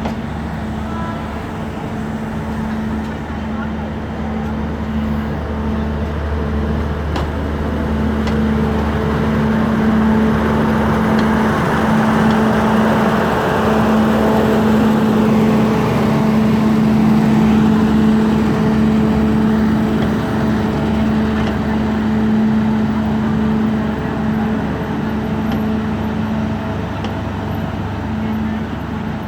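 Diesel train running, a steady engine hum under a rolling rush that swells toward the middle and eases near the end.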